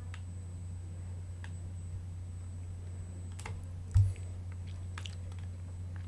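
Sparse, faint mouse clicks and key presses at a computer over a steady low electrical hum, with one dull low thump about four seconds in.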